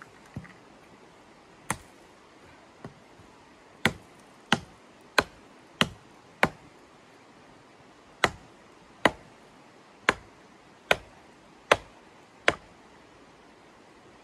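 Hatchet chopping a thin wooden pole: a few light taps, then two runs of about five hard, sharp blows each, well under a second apart, with a short pause between.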